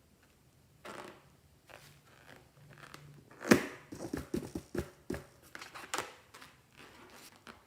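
Slime and balloon toys handled by hand: an irregular string of short crinkles, clicks and small squelchy pops. The sharpest snap comes about three and a half seconds in.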